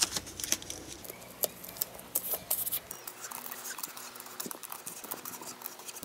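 Paper masking tape being handled, torn and pressed onto a car tyre around the wheel rim: scattered small crackles and rustles, a few slightly louder about one and a half and two seconds in.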